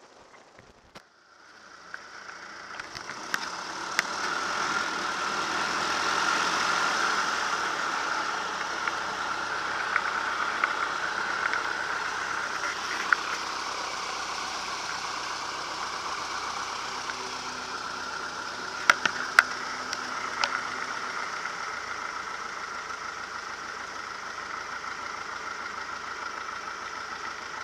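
Marquart Charger biplane's piston engine and propeller running at low power on the ground, a steady drone with a hiss of propwash. It starts faint and grows louder over the first few seconds, with a few sharp clicks or raps around the middle.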